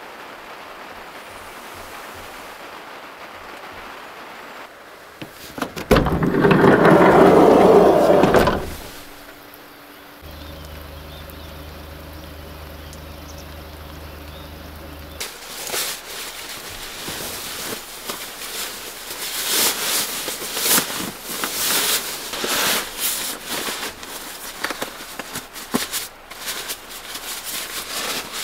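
A steady hiss, then a loud rushing noise for about two and a half seconds and a steady low hum for about five seconds. In the second half comes a dense rustling and crinkling: a sleeping bag being stuffed by hand into a nylon stuff sack.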